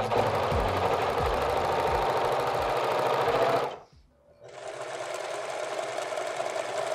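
Janome serger (overlocker) running at a steady speed, stopping just before four seconds in. About half a second later a straight-stitch sewing machine starts and runs steadily.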